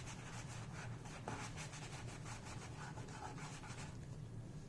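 Cloth wiping the plastic forend of a shotgun in quick, faint back-and-forth rubbing strokes, cleaning off grease before a tape-mounted shell holder goes on; the rubbing stops near the end.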